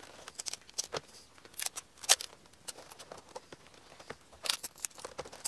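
Clear sticky tape being pulled from its roll, torn off and pressed down onto a laptop LCD panel's edge circuit board: scattered crackles, rips and snaps, the sharpest about two seconds in and another cluster near the end.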